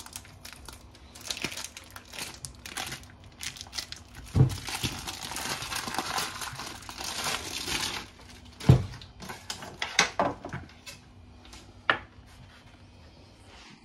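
Thin clear plastic wrap being peeled, torn and crumpled off a wheel of cheese, crackling and crinkling, densest from about four to eight seconds in. A few dull knocks come in between, the loudest about nine seconds in.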